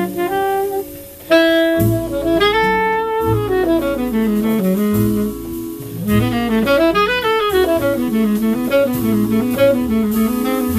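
Live jazz: a saxophone plays a flowing melody over walking double bass. About a second in, the level drops briefly before the saxophone comes back in strongly.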